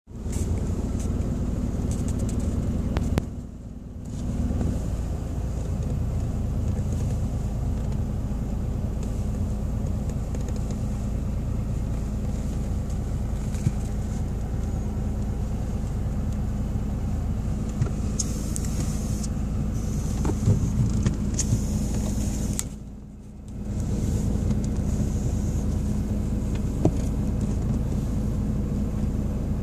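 Car engine running steadily, heard from down in the cabin footwell, a continuous low hum. The sound drops away briefly about three and a half seconds in and again around twenty-three seconds in, with a few small clicks here and there.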